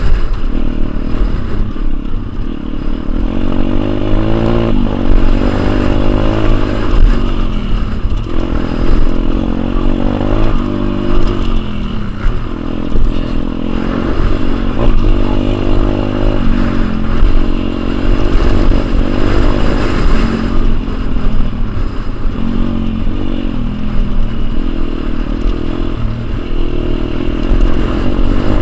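Pit bike engine at full tilt on a dirt track, its revs climbing and falling again and again through corners and gear changes.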